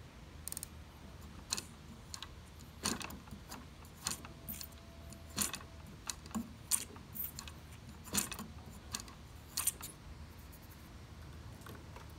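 Scattered light clicks and taps, irregularly spaced, from hands working a Saito FA-62 four-stroke glow engine as it is primed for starting: the propeller is turned over by hand while a finger covers the carburettor intake.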